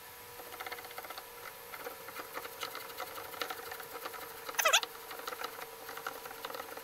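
Air bottle of a PCP air rifle being screwed onto the gun by hand, the threads turning with a fast run of fine ticks and scrapes. There is a short squeak a little past the middle.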